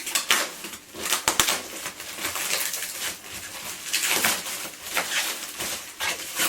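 Hands pulling and squeezing at a parcel's packaging while trying to tear it open, in irregular bursts of rustling and crinkling with a few sharp crackles.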